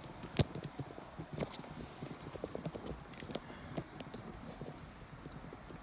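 Handling noise of a camera being set and adjusted on a tripod: one sharp click about half a second in, then a string of light, irregular taps and clicks.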